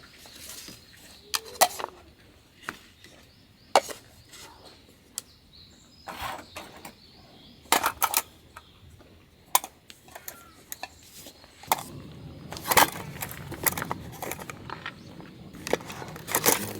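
Camping gear being packed away by hand: irregular knocks and clinks of items being handled and set down, with a steadier rustling noise joining from about two-thirds of the way in.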